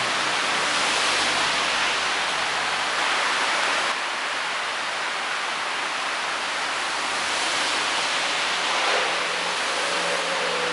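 Steady, dense hiss of heavy rain, dipping slightly about four seconds in.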